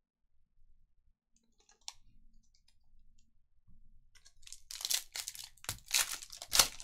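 The foil wrapper of a sealed baseball card pack crinkles and crackles as the pack is handled and torn open. After a quiet start, the rapid crackling begins about four seconds in and gets louder toward the end.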